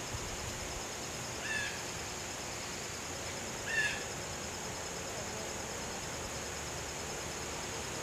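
Two short, harsh bird calls, about two seconds apart, over a steady high insect drone.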